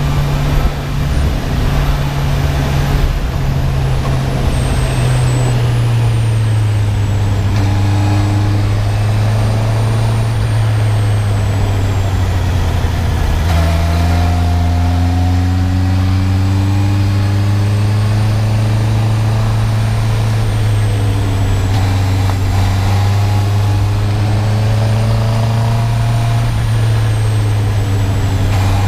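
Honda CB650R inline-four on its stock exhaust, running steadily under way as the motorcycle is ridden. The engine note drifts slowly and drops suddenly in pitch about halfway through, then holds steady again.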